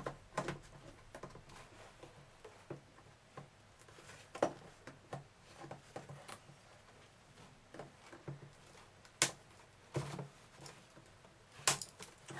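Handling noise from hands and wire cutters working inside a Kirby Generation vacuum's cloth outer bag at the plastic fill tube: soft rustling and scattered clicks, with a few sharper clicks about half a second in, midway, and twice near the end.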